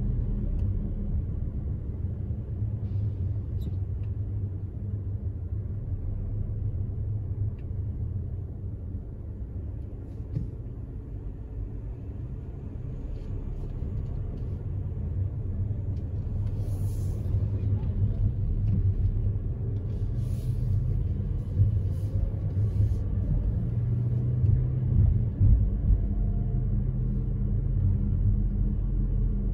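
Car driving: a steady low rumble of engine and road noise, easing off around ten seconds in and building again afterwards.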